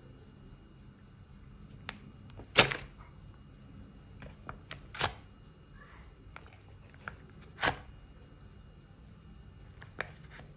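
Several sharp clicks and taps of a kitchen knife as slices are cut from a block of butter and laid in a ceramic baking dish, the loudest about two and a half, five and seven and a half seconds in.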